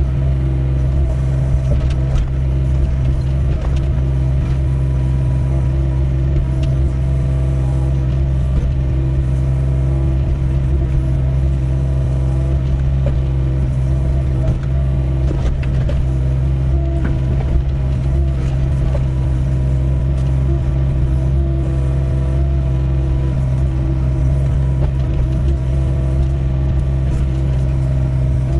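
Doosan 55W wheeled excavator's diesel engine running steadily, with scattered light clicks and knocks over the engine.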